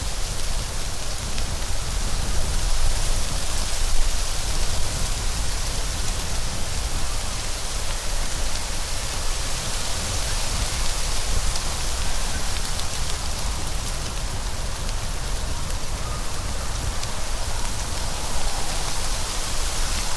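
Steady rain: an even, unbroken hiss with a low rumble underneath and a few faint scattered drop ticks.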